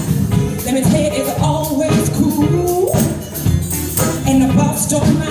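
A live R&B/soul band playing with a steady drum beat, electric guitar and keyboards, and a woman singing lead.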